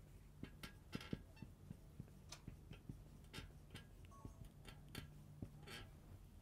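Marker pen writing on a whiteboard: faint, irregular taps and short scratchy strokes as letters are written.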